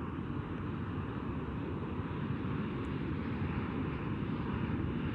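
Steady outdoor background rush with no distinct events.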